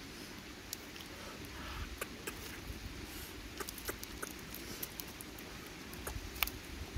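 Scattered small clicks and taps of river pebbles shifting under two puppies as they move about and sniff, with one sharper click about six and a half seconds in, over a steady low background rumble.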